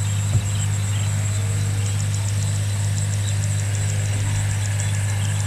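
A motor humming steadily at a low pitch, with faint fast ticking high above it from about two seconds in.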